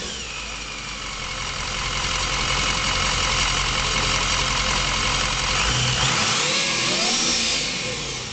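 6.0 Powerstroke V8 turbo-diesel fitted with a belt-driven ProCharger centrifugal supercharger, idling with a steady high whine from the blower. About six seconds in, the engine is blipped and the supercharger's whine sweeps up in pitch and falls back over a second or so.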